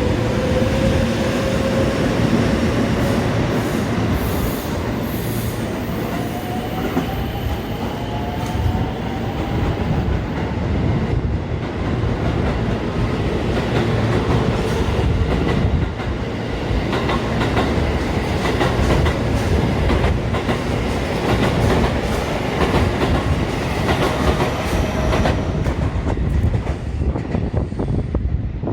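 JR electric train running along the station platform: a steady loud rumble of steel wheels on rail with repeated clicks over rail joints, and a faint rising whine from the traction motors over the first several seconds.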